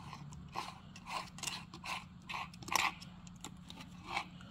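Plastic Husqvarna R25 trimmer head being turned by hand on a brush cutter's gearbox shaft while a locking pin holds the shaft: a series of irregular light clicks and rattles, over a steady low hum.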